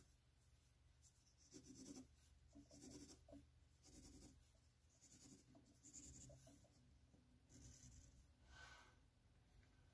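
Wooden pencil scratching faintly on paper in short, irregular shading strokes.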